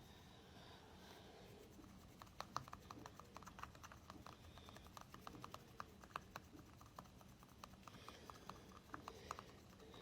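Faint, quick little ticks and taps, several a second and unevenly spaced, from fingers handling a ball close to the microphone.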